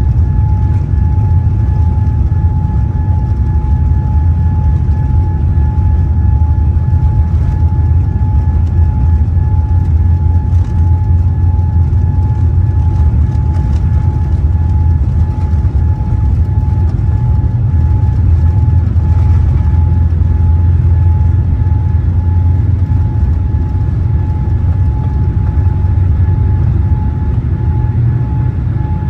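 Boeing 787 jet engines at takeoff thrust, heard from inside the cabin over the wing during the takeoff roll: a loud, steady low rumble of engines and wheels on the runway, with a steady high whine above it.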